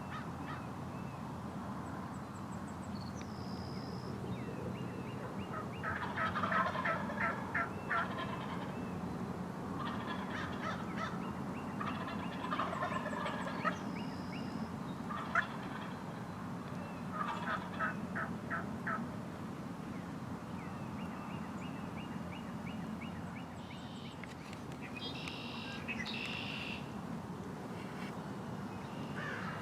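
Wild turkey gobbling about four times, each a fast rattling burst, with smaller songbirds whistling and trilling in the background.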